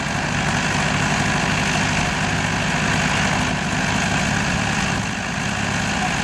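Diesel engine of a 1963 Aktiv combine harvester running steadily.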